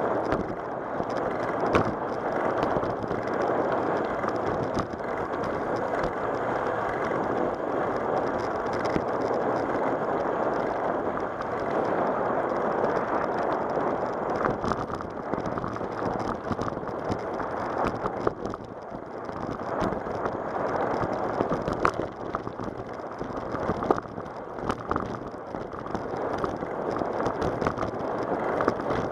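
Ride noise from a bicycle-mounted camera: a steady rush of wind on the microphone and tyres rolling over cracked asphalt, with scattered sharp knocks as the bike jolts.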